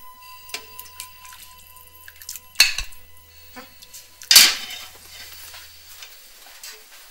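A metal ladle clinking against plates and a pot while food is served. There are two loud ringing clinks, about two and a half and four and a half seconds in, with lighter taps between them.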